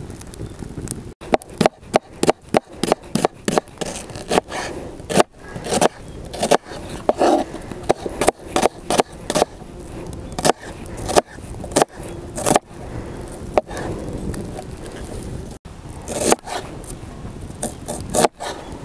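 A knife chopping vegetables on a wooden cutting board: runs of sharp knocks, several a second, with short pauses between the runs. A steady low wind noise fills the first second or so.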